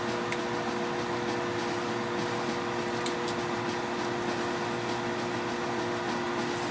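Electric oven running while baking choux pastry: a steady mechanical hum with two steady tones, with a couple of faint ticks near the start and about three seconds in.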